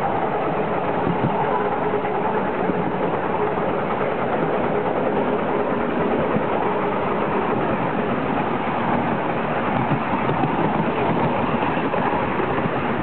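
Miniature railway train running along its track, heard from an open passenger carriage: a steady rumble of the wheels on the rails and the running gear, with no let-up.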